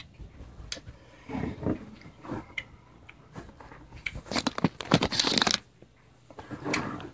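Handling noise from a sauce bottle being moved close to the microphone: scattered clicks and rustles, with a louder burst of scraping and rubbing about four to five and a half seconds in.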